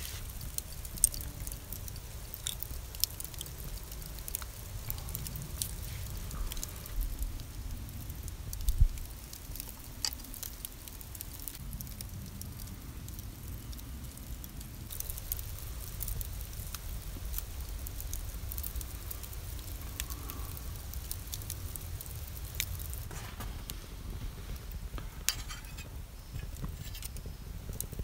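Wood campfire crackling, with scattered sharp pops over a low steady rumble and one louder knock a little under nine seconds in.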